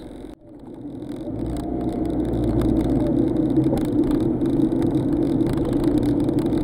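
Car engine and road noise heard from inside the cabin, a steady low rumble. It drops out briefly near the start, grows louder over the next two seconds, then holds steady.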